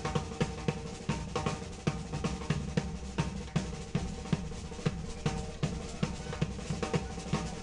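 Drum kit played live with sticks: a fast, busy pattern of snare and bass drum hits with cymbals, about four to five strikes a second.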